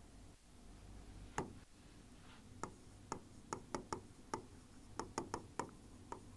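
Pen tapping and clicking on an interactive whiteboard's touchscreen while writing: a dozen or so short sharp ticks, few at first and coming closer together in the second half.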